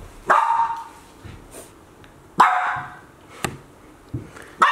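A dog barking three times, about two seconds apart.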